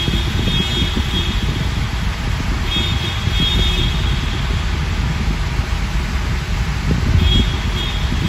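Car driving on a wet tunnel road, heard from inside the cabin: a steady low rumble of tyres and engine. Three times, at the start, about three seconds in and near the end, high-pitched pulsing tones of honking car horns sound over it.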